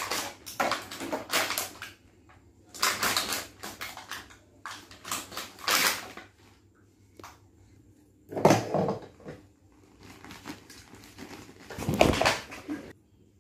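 Toys and plastic being handled in short, scattered bursts of rustling and knocking, with two louder thumps, one past the middle and one near the end.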